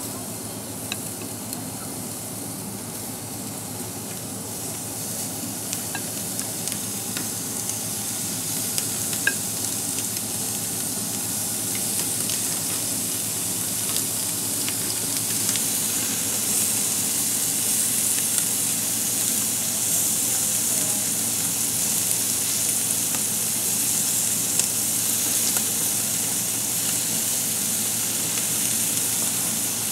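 Hot dogs and kielbasa sizzling on the hot grate of a Coleman RoadTrip Sport propane grill, a steady frying hiss that grows louder over the first half. A few faint clicks come in the first several seconds.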